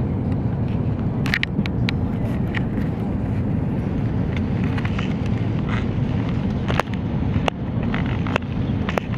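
Steady low rumble of an Airbus A330's engines and airflow heard inside the cabin on approach, with scattered sharp clicks and ticks over it.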